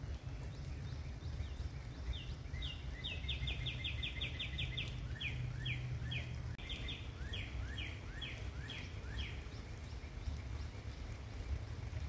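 A songbird sings a run of quick downslurred whistled notes, first a fast series, then a slower series of two-part notes, over a steady low rumble.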